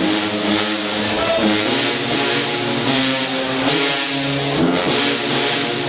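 Marching band brass playing a rhythmic tune, with the sousaphones carrying the low part in held notes that change every beat or so.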